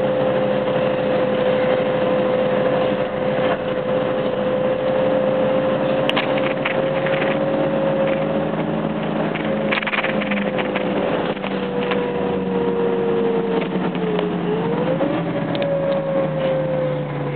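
Irisbus Crossway LE bus running at speed, heard from inside the passenger cabin: steady engine and road noise with a whine that slowly drops in pitch, sags and climbs back about fifteen seconds in. A few short rattles around six and ten seconds in.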